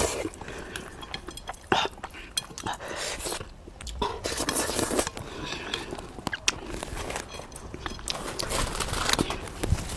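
Close-up eating sounds: chewing and mouth noises with utensils clicking and clinking against the dish at irregular moments.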